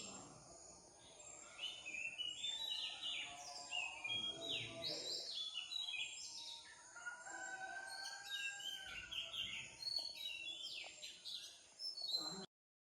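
Outdoor birdsong: many birds chirping and calling over one another, with one longer drawn-out call in the middle, cutting off suddenly near the end.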